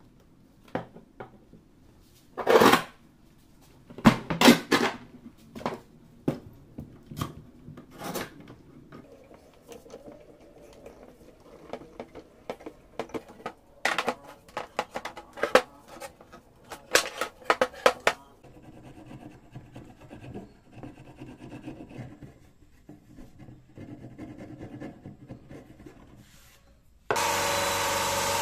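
Wooden strips knocked and slid against each other and against pipe clamps on a workbench, with scattered knocks and a run of quick clicks midway while the clamps are tightened. Near the end a Krisbow thicknessing machine starts suddenly and runs steadily and loudly.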